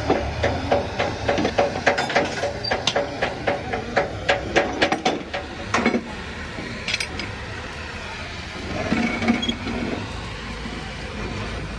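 Hammer blows on steel, a quick even run of about three ringing strikes a second for the first five seconds, then a few single metal clanks.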